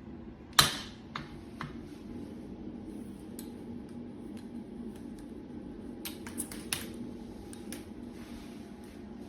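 Hard plastic and metal clicks and clinks from handling a shower head and its fittings: one sharp clack about half a second in, then scattered lighter clicks with a cluster around six to seven seconds, over a steady low hum.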